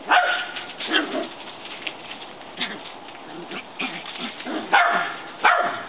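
Shetland sheepdog (Sheltie) barking: a series of short, sharp barks, loud at the start and twice near the end, with fainter yaps between.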